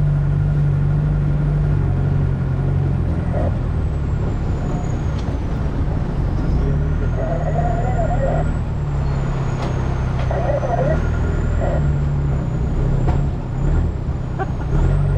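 Off-road 4x4's engine running steadily as the vehicle crawls over a rocky riverbed trail, a low drone heard from inside the cab.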